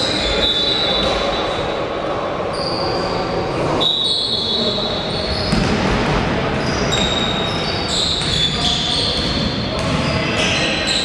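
Basketball game sound: the ball bouncing on the court, with many short high squeaks from sneakers and a crowd chattering.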